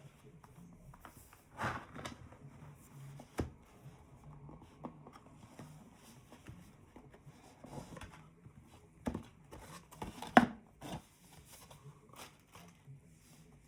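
Headphone packaging being handled and opened: scattered light clicks, taps and rustles, with a few louder knocks and rustles, the loudest about ten seconds in.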